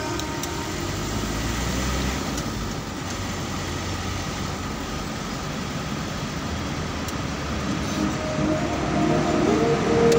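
Steady road noise of a vehicle driving, engine and tyres with no distinct events. Music comes in faintly about eight seconds in.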